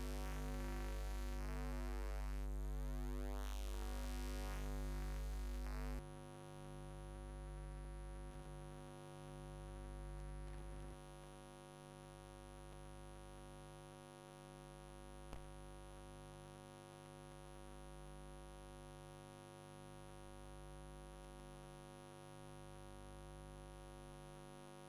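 Electronic, music-like tones with a pulsing pattern cut off suddenly about six seconds in. A steady electrical hum with a thin high whine and a slow low throb is left, with a single click in the middle.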